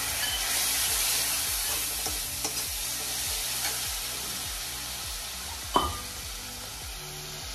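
Ground spice masala sizzling and spitting in hot oil in a kadai, with a little water just added to cook the spices, while it is stirred with a metal spatula. The sizzle slowly dies down, and the spatula gives one sharp clink against the pan about six seconds in.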